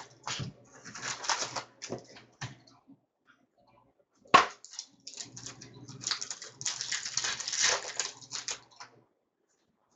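Fleer Ultra hockey card box and its wrapped packs being torn open and handled: repeated bursts of crinkling and tearing wrapper, with one sharp snap about four seconds in.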